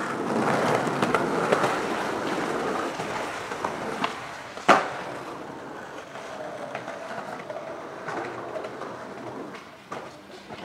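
Skateboard wheels rolling on pavement, fading as the board moves off, with one sharp clack of the board hitting the ground about halfway through.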